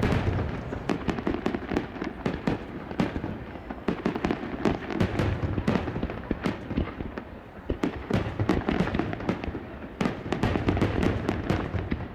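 Starmine fireworks barrage: shells bursting in a dense, continuous string of bangs, several a second, overlapping and swelling and easing in waves.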